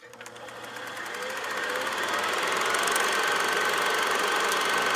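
A motor running steadily, growing louder over the first two seconds and then holding level.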